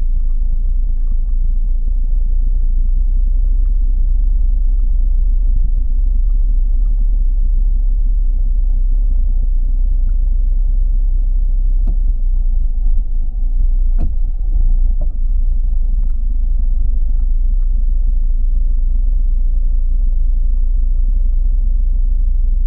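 Car engine idling while the car stands still, heard from inside the cabin as a steady low rumble. A few faint short clicks come through around the middle.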